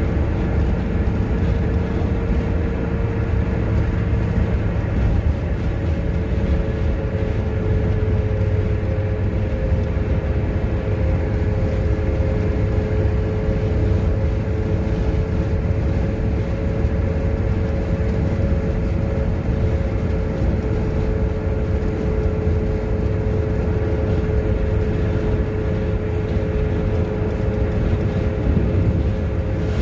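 Steady engine and road noise inside a moving car's cabin, with a constant low drone and an even tone.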